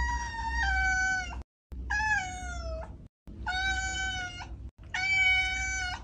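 Domestic cat meowing: a string of long, drawn-out meows, each falling in pitch, with short gaps between them.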